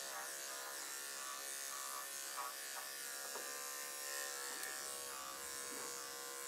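Corded electric dog clippers running with a steady buzz as the blade shaves down a cocker spaniel's coat.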